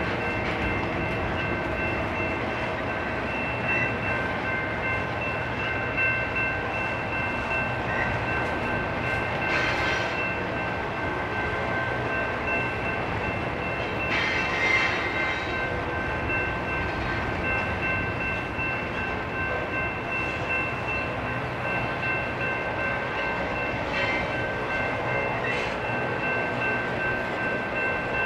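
Intermodal freight train rolling slowly past: a steady rolling rumble of wheels on rail with thin, steady high-pitched squeals over it and a few brief louder screeches, about 10 and 15 seconds in.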